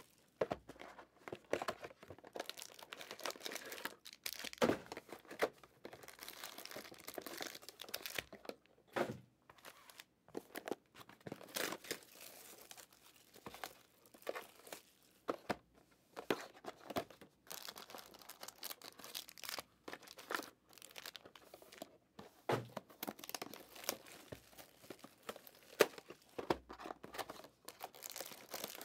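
Wrapping and cardboard packaging of Panini Prizm Draft Picks hobby card boxes being torn open and crinkled by hand, in irregular rustles and sharp crackles.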